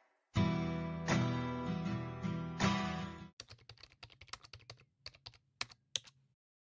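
Acoustic guitar background music, plucked and strummed, that stops abruptly about three seconds in. It gives way to a run of quick, irregular computer-keyboard typing clicks.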